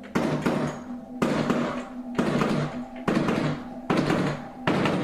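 Loud knocks or bangs repeating about once a second, each struck sharply and ringing briefly before fading.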